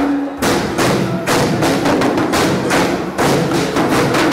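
Live percussion on congas and timbales: a run of loud, sharp drum strikes in a rhythmic pattern.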